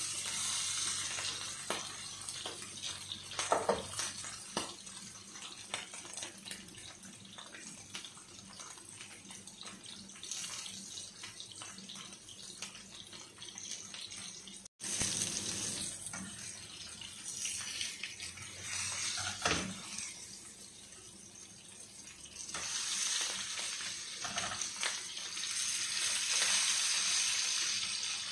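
Sea bream frying in hot oil in a shallow pan: a steady sizzle with crackling spatter, swelling near the end as the fish are turned with tongs. A few louder knocks sound along the way.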